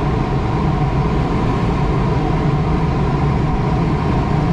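Steady rush of air around a sailplane's cockpit in flight, with a faint steady whistle over the low noise.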